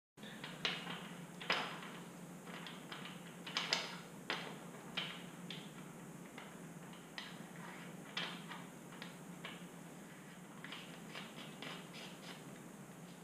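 Scattered light clicks and knocks of hand-handled parts at the engine's oil filler opening, as the oil filler cap is fitted and screwed back in after refilling. A steady low hum runs underneath.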